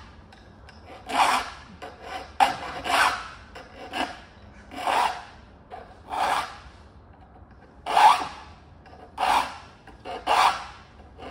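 Hand file cutting the teeth of a hand saw clamped in a wooden saw vise. It makes single rasping push strokes, roughly one a second, with short quiet gaps between them as the teeth are sharpened one after another.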